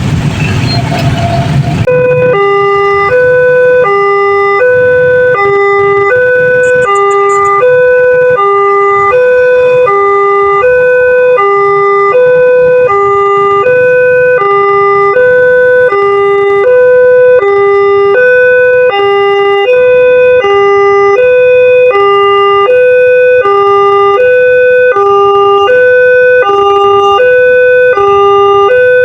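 Railway level-crossing warning siren of the Multec type, starting about two seconds in and alternating evenly between a higher and a lower tone at a quick pace.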